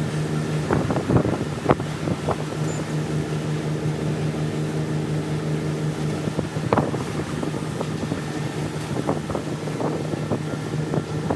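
Steady machine hum with a few sharp knocks and clicks scattered through it.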